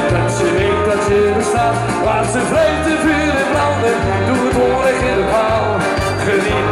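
A man singing into a microphone over an amplified backing track with a steady bass beat, heard through PA speakers.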